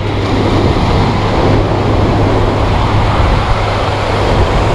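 Ocean surf breaking and washing up the sand, an even rushing noise over a steady low rumble.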